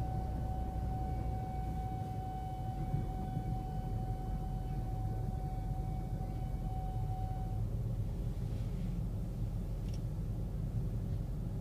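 Railway level-crossing warning alarm sounding as one steady high tone, cutting off about eight seconds in once the train has cleared the crossing. Underneath, a constant low rumble of idling traffic and the passing commuter train.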